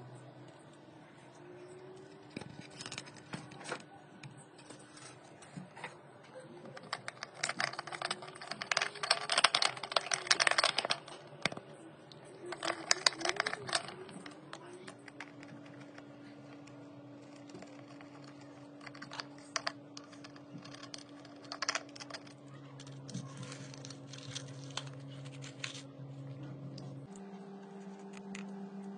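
Scattered light clicks and rattles from small hard objects being handled, thickest in a busy stretch about a third of the way in. A faint steady hum runs underneath.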